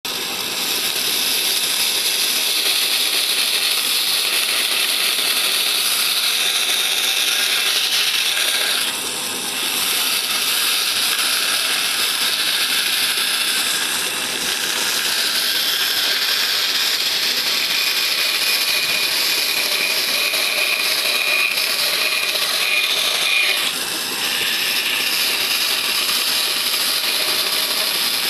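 Band saw running and cutting through a block of hardwood: a steady, high-pitched sawing hiss that dips briefly twice, with a thin whine joining in for a few seconds past the middle.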